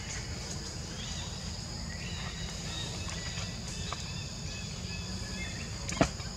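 Outdoor ambience of insects shrilling steadily at a high pitch over a low rumble, with a few faint high chirps partway through. A single sharp knock comes about six seconds in.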